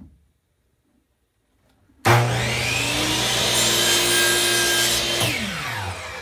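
Electric miter saw started about two seconds in, its motor spinning up with a rising whine and running steadily through a cut in a maple burl pen blank. Near the end it is switched off and winds down, its pitch falling.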